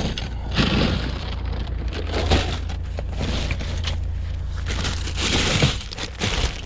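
Scrap metal clattering and crunching as it is unloaded and tipped, with several crashes, loudest near the middle and toward the end, over a steady low rumble.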